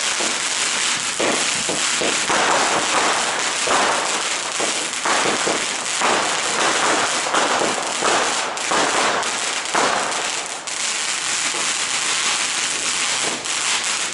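Consumer fireworks going off close by: a multi-shot firework battery launching coloured shots from the ground, making a dense, unbroken run of cracks, bangs and crackling.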